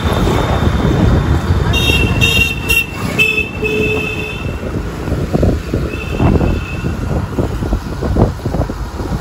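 Street traffic heard from a moving two-wheeler: a steady rumble of road and engine noise. Vehicle horns sound over it, one held into the first second, several short toots about two to four seconds in, and another about six seconds in.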